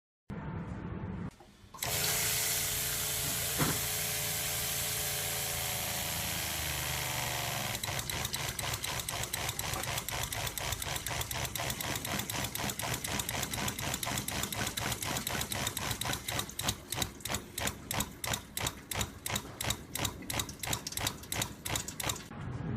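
Marine diaphragm pump running, a steady motor sound that turns into a fast, regular pulsing from about eight seconds in, the pulses growing more marked near the end.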